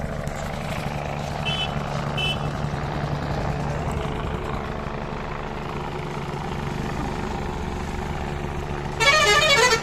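A steady low engine drone runs throughout, with two short high beeps in the first few seconds. Near the end a loud warbling blast lasts just under a second.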